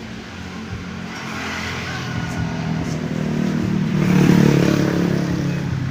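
A motor vehicle's engine running, growing louder to a peak about four seconds in, then fading, as if driving past.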